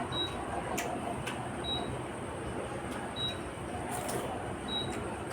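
A person eating panta bhat (soaked rice) by hand: soft wet mixing and chewing with a few sharp clicks. A faint short high beep repeats about every second and a half.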